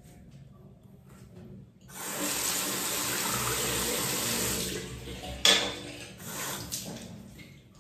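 Tap water running into a bathroom sink, starting about two seconds in and easing off after about three seconds. A sharp knock comes about halfway through, followed by softer, uneven splashing.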